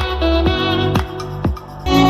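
Music with a steady kick drum about twice a second and plucked guitar, played through a JBL Charge 5 portable Bluetooth speaker. The bass drops out briefly from about a second in and comes back just before the end.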